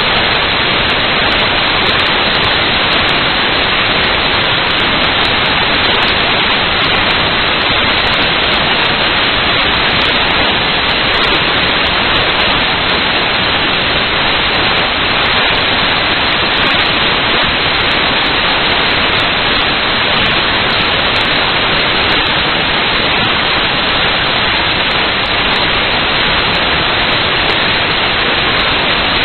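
Loud, steady static hiss, even throughout, with no motor whine or knocks standing out.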